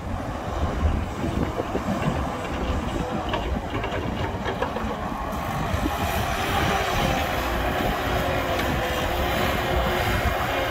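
Heavy diesel machinery of an excavator loading a dump truck, running with a deep, uneven rumble. About six seconds in, a steadier, higher engine note joins and the sound grows a little louder.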